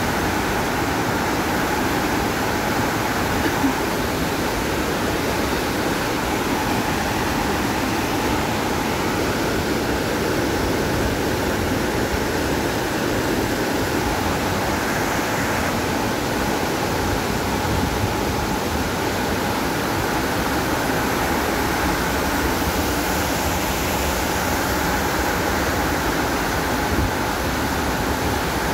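Nyahururu Falls, a large waterfall, pouring steadily into its pool: a dense, unbroken rush of falling water heard from close below.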